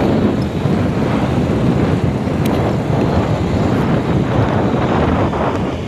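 Wind rushing over the microphone of a moving motorcycle, a loud, steady rush that drowns out everything else.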